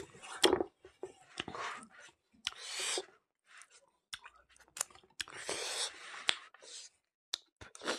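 Mouth sounds of someone eating curry with his hand: wet lip smacks, sucking and short slurps as he licks his fingers clean, between fingers wiping around a wooden bowl. It comes as a series of sharp clicks and brief hissing sucks with short pauses between them.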